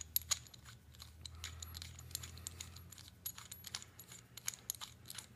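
Faint, scattered metallic clicks and clinks as the threaded coupling ring of a PL-259 coax connector is turned and worked off its body by hand, over a low steady hum.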